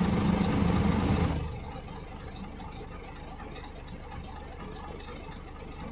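Scania truck diesel engine idling with a steady, even pulse. It is louder and brighter for about the first second and a half, then settles to a lower level.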